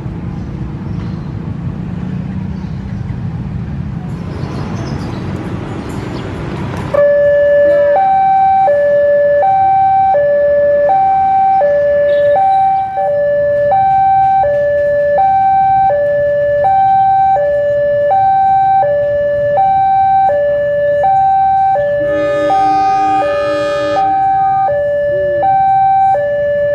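Loud electronic two-tone warning alarm, alternating high and low about once a second, starting about seven seconds in over the low rumble of a CC 203 diesel locomotive rolling slowly into the station.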